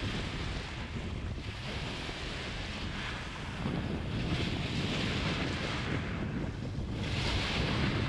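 Small waves breaking and washing over a pebble beach, surging in three rushes, the last one near the end the loudest, with wind rumbling on the microphone.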